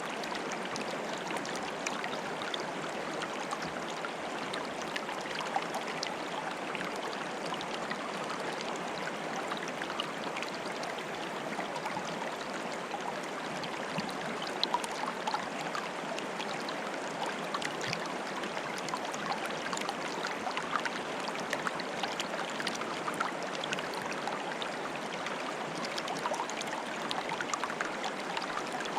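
Flowing water bubbling steadily, with many small plinks and splashes scattered through it.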